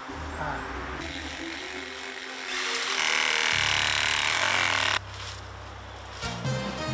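Handheld power saw cutting through dry branches, its steady cutting noise loudest for a couple of seconds in the middle and then cutting off suddenly.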